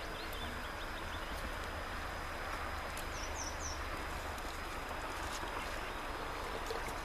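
Steady rushing of a small creek, with a low wind rumble on the microphone. Three quick bird chirps come about three seconds in.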